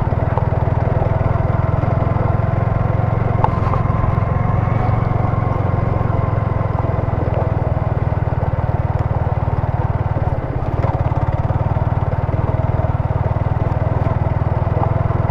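Yamaha R15 V3's single-cylinder 155 cc engine running steadily while the bike rides slowly over a gravel track, with a brief easing off about ten seconds in.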